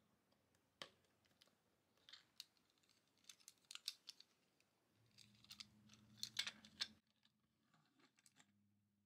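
Faint clicks and taps of a small plastic toy vehicle and figure being handled and snapped together, with the busiest, loudest run of clicks about five to seven seconds in, and a few softer taps as the toy is set down on the table.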